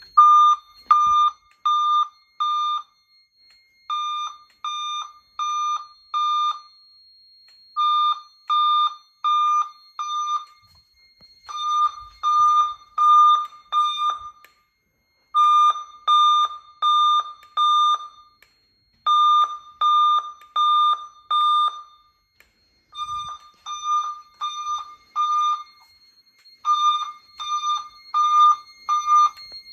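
EST Genesis speaker strobes sounding a recreated 'Boston tone' fire alarm signal: a loud, high, pulsed beep in bursts of several quick beeps, each burst lasting about three seconds, with a pause of about a second between bursts.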